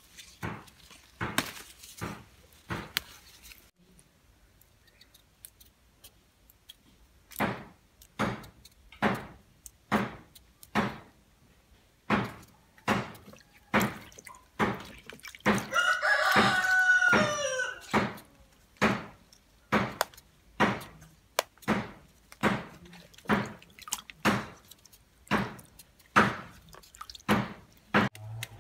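A rooster crows once, about halfway through, in one long wavering call. Around it runs a steady series of short sharp ticks, about one every two-thirds of a second, with a pause of a few seconds near the start.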